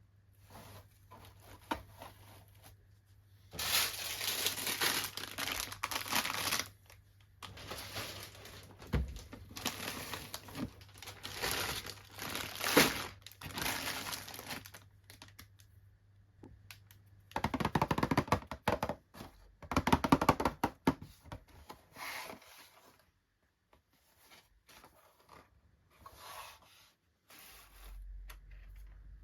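Doll packaging being opened by hand: cardboard and plastic tearing and crinkling in spells of a few seconds, with quiet gaps between, and a quick run of clicks about eighteen seconds in.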